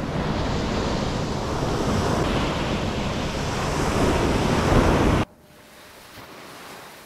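Ocean surf washing onto the beach with wind blowing across the microphone, a loud steady rush that builds slightly and then cuts off abruptly about five seconds in, leaving fainter surf.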